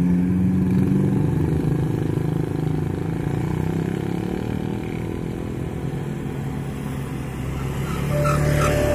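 Motorcycle and other road-vehicle engines running steadily. About eight seconds in, the level crossing's new electronic warning siren starts a steady tone.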